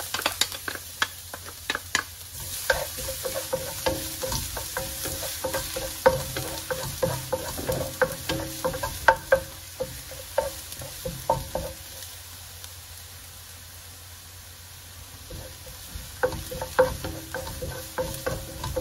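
Minced garlic sizzling in hot oil in a nonstick wok, with a wooden spatula tapping and scraping the pan as it is stirred. The stirring lets up for a few seconds past the middle, leaving only the sizzle, then picks up again near the end.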